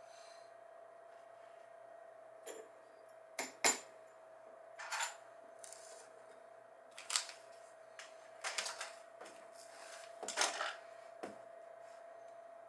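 Irregular knocks, clicks and brief scrapes of a plastic cutting board being handled and food scraps cleared from it, over a steady faint hum.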